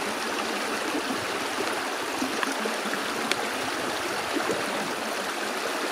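Shallow rocky brook babbling steadily over stones.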